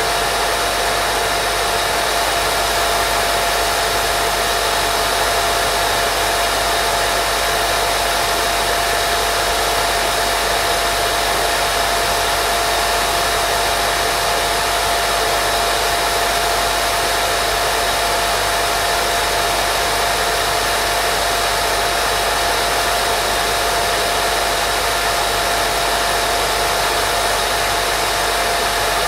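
Continuous baby-sleep white noise: an even, unchanging hiss with a steady hum-like tone running through it.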